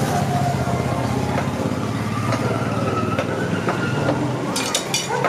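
A steady mechanical rumble with a low hum runs under scattered sharp knocks. A quick run of about five knocks comes near the end.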